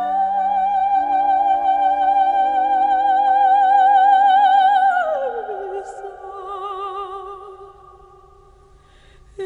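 Operatic soprano singing over orchestral accompaniment: one long held high note with a light vibrato slides down about five seconds in, and the music then fades.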